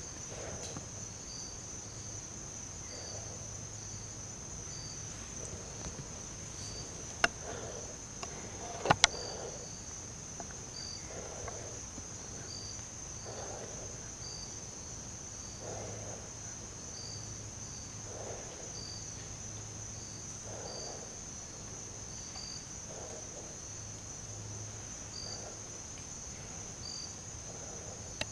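Steady, high-pitched chorus of crickets or other insects, with a second insect call pulsing about once a second beneath it. A few sharp clicks stand out about seven and nine seconds in.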